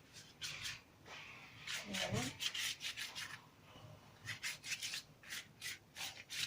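Brush strokes spreading oil over a sheet of yufka pastry: a series of short, soft rubbing sweeps at an uneven pace.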